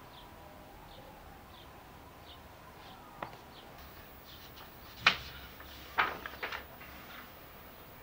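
Faint high bird chirps repeating every half second or so in the background. Over them come a few sharp taps and clicks from a paper notebook being handled and its pages turned, the loudest about five seconds in and a cluster around six seconds.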